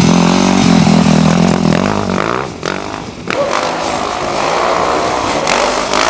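Motocross motorcycle engine running loud and steady, then easing off briefly about halfway before picking up again.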